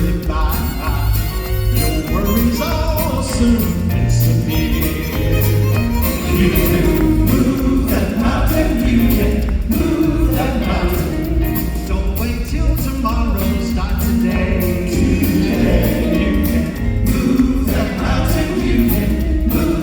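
Southern gospel group singing in harmony with band accompaniment and a steady bass beat.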